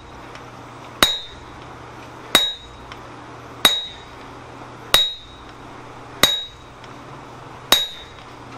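A striker's sledgehammer hitting a handled top tool held on a hot steel swage block, six blows at an even pace of about one every 1.3 seconds, each a sharp clang with a short ring. The blows are sinking a depression into the block.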